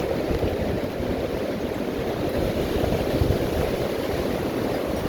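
Gale-force wind gusting hard, buffeting the microphone with a dense, low rushing noise that stays loud without a break.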